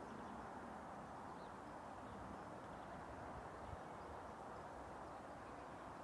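Faint, steady outdoor background noise, an even hiss, with a few faint high chirps, likely birds. No crossing alarm is clearly heard.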